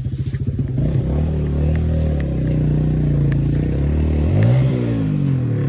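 Motorcycle engine running, coming in suddenly, then revved up once and back down about four and a half seconds in.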